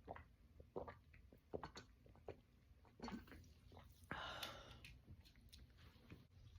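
A woman drinking Sprite, with quiet gulping swallows about every three-quarters of a second, then a short breathy exhale about four seconds in.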